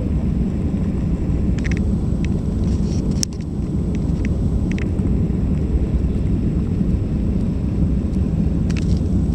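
Airliner cabin noise as the jet rolls on the ground: a steady low rumble of engines and wheels, with a few light clicks and rattles, one sharper click about three seconds in.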